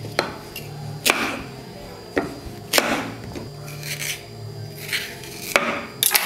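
Kitchen knife cutting through the ends of bananas and striking a wooden cutting board: several sharp knocks, spaced irregularly a second or more apart, over a faint low steady background tone.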